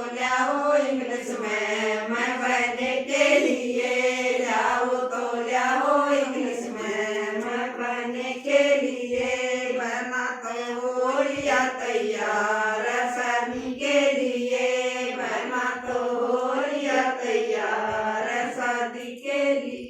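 A group of voices singing a folk wedding song together, in a repetitive chant-like melody.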